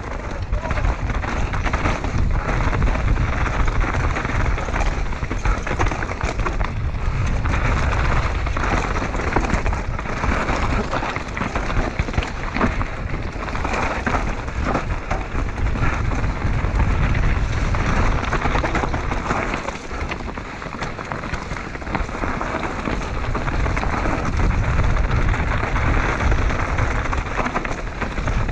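Mountain bike descending rough forest singletrack, heard from a chest-mounted camera: tyres rolling and crunching over stones, dirt and roots, with the chain and bike rattling at every bump. Wind rumbles on the microphone, and the level eases briefly about two-thirds of the way through.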